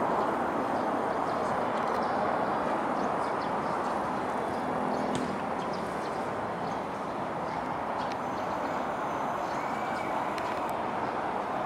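Steady hum of distant city traffic, with a few faint high ticks or chirps over it.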